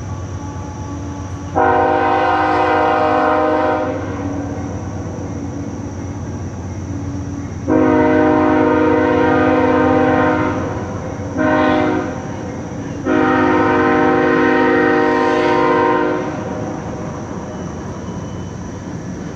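Train horn blowing four blasts, long, long, short, long: the standard warning for a grade crossing. Under it the passing train makes a steady low rumble.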